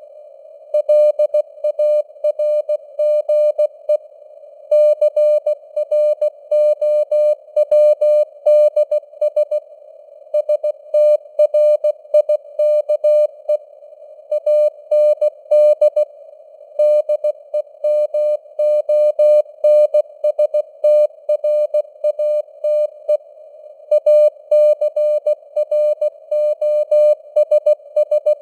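Morse code (CW) sent at 16 words per minute: a single mid-pitched tone keyed into dots and dashes, with short pauses between words, over a band of simulated radio receiver hiss.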